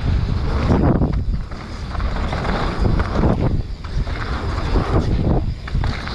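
Wind buffeting the camera microphone and the rumble of a mountain bike's tyres rolling fast over a dirt trail, a steady rough rush that swells and dips.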